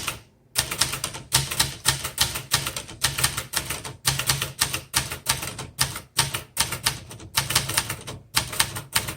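1972 Webster XL-747 portable typewriter, made by Brother, being typed on: a quick, uneven run of sharp key strikes with brief pauses between bursts.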